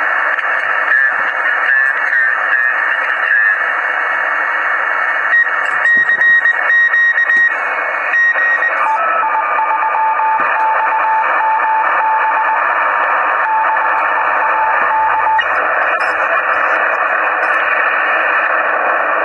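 Icom IC-706MkII transceiver receiving on upper sideband: steady receiver hiss with a 10-metre beacon's Morse code coming through as a keyed beeping tone. About nine seconds in the tone drops to a lower pitch as the dial is tuned up a kilohertz, and it stops a few seconds later, leaving only hiss. With a common mode choke on the end-fed antenna's feed line, the band noise is low enough for the weak beacon to be heard.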